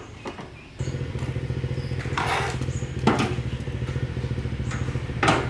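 A motor switches on about a second in and runs with a steady, fast-pulsing low hum, with three short bursts of hiss over it.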